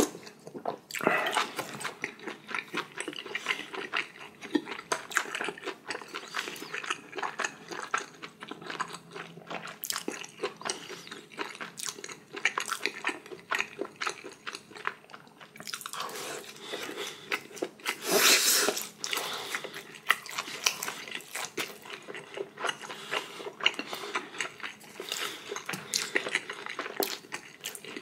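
Close-miked mouth sounds of a person eating spicy ramyeon and steamed dumplings: steady chewing, lip smacks and bites into a dumpling. A louder, longer rush of noise comes a little past halfway.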